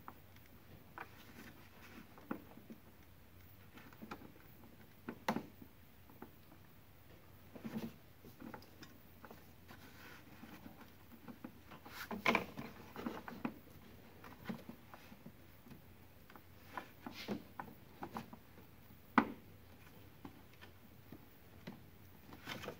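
Hands working a new A/C evaporator temperature sensor back into its plastic housing among the engine-bay hoses and wiring. Irregular clicks, taps and rubbing of plastic parts, with sharper clicks about halfway through and again near the end.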